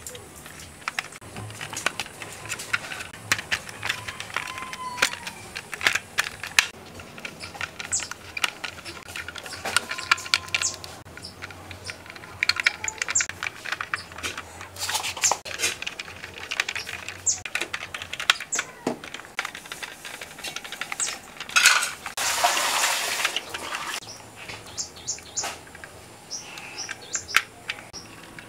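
Irregular small clicks and taps of plastic and metal parts being handled and fitted on a toy M16 rifle, with a small screwdriver at work at the receiver. About three quarters of the way through there is a stretch of hissing noise lasting about a second and a half.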